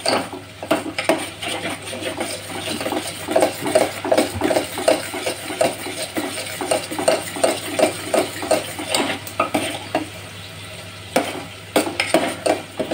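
Steel ladle stirring and scraping thick egg-yolk halwa in a stainless-steel pot, in rhythmic strokes about three a second. A few sharper metal clinks come near the end.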